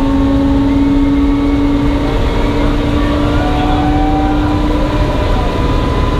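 Jet engine of a jet-powered Freightliner semi truck running steadily while the truck stands still, a loud rumble with steady whining tones; the strongest tone fades out about five seconds in.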